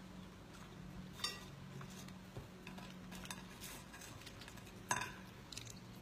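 Small clicks and knocks from a person eating a fast-food meal and handling its packaging, with two sharper knocks about a second in and near the end, over a steady low hum.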